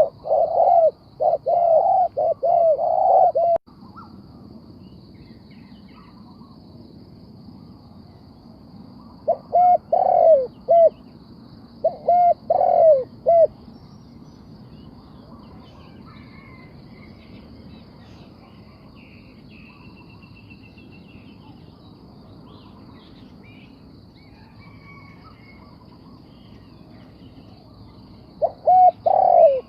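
Spotted dove cooing: a quick run of repeated coos, two short phrases later on and another near the end, with long pauses between. Faint chirps of other birds and a faint steady high buzz in the background.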